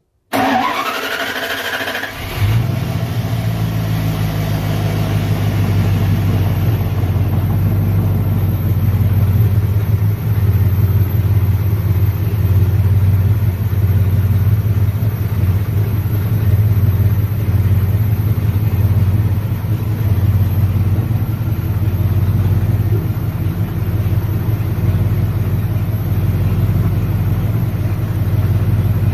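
Dodge 360 small-block V8 cranked by the starter for about two seconds, catching and settling into a steady idle. This is the first start after the oil change, run to check the new filter and drain bolt for leaks.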